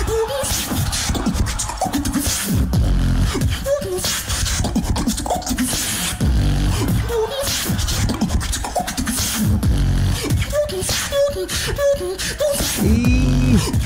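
Solo beatbox routine performed into a microphone: heavy deep bass hits under a steady beat of vocal kick and snare sounds, with short pitched notes laid over it and a bending bass sweep near the end.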